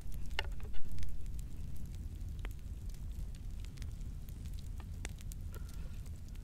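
Raw chicken being worked onto metal skewers over a wooden bowl: scattered light clicks and wet handling sounds over a steady low rumble, with a louder thump just under a second in.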